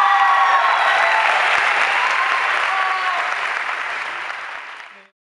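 Audience applauding, with a few voices cheering over it. The applause slowly dies down and cuts off suddenly near the end.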